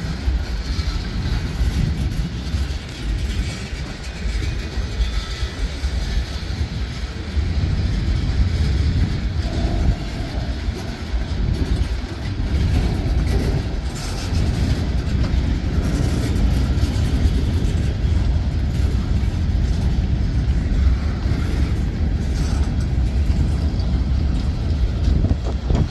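Freight train boxcars rolling past: a steady low rumble of steel wheels on rail, with occasional clacks.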